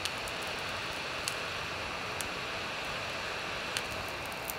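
Handheld heat gun blowing a steady hiss of hot air with a faint whine, softening the adhesive under a Nintendo Switch touch screen; a few light ticks come through it.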